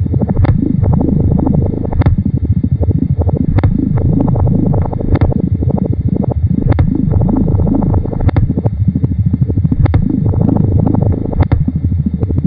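Experimental electronic tape music: a dense, low, warbling drone whose tones repeatedly slide up and down in pitch, cut by a sharp click about every second and a half.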